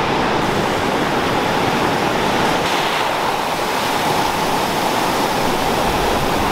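Ocean surf breaking and washing up the beach, a steady rushing noise.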